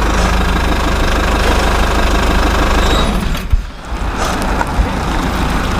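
Steady low engine rumble, like a diesel idling, that dips out briefly about three and a half seconds in with a sharp click, then picks up again.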